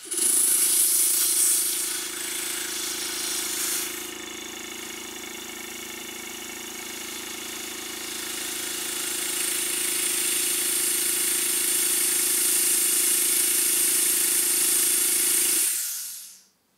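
Wrightscale model Baldwin WD 4-6-0 live-steam locomotive running smoothly on compressed air with its wheels off the track: a loud steady hiss of air exhausting through the cylinders, with a steady hum underneath. It eases after a few seconds, builds up again and cuts off suddenly near the end as the air is shut off.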